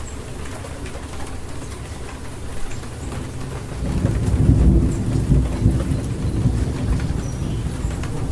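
Rainstorm: rain falling steadily, with a low rumble of thunder that swells about four seconds in and carries on.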